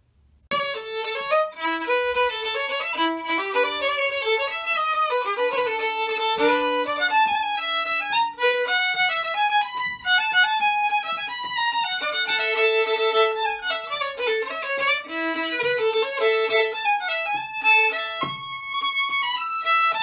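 Solo violin played with a bow: a melody of many quick notes with a few longer held ones, starting suddenly about half a second in.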